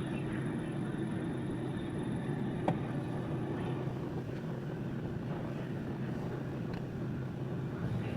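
CNC wheel repair lathe running with a steady machine hum, one short click about two and a half seconds in.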